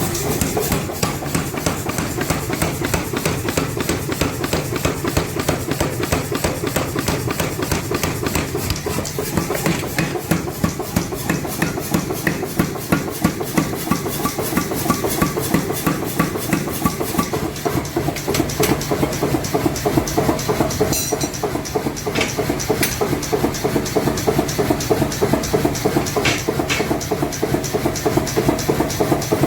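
Mechanical power hammer pounding steel in a fast, steady rhythm of blows while forging a nail puller.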